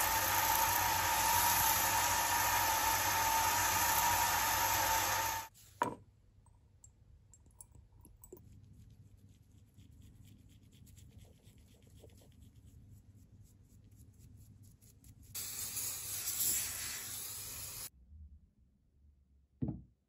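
Small metal lathe running steadily with a strong humming tone while hand-held sandpaper rubs on a spinning steel knob, cutting off abruptly about five seconds in. Then faint close brush strokes on the metal, a louder rubbing noise for a couple of seconds, and a single knock near the end.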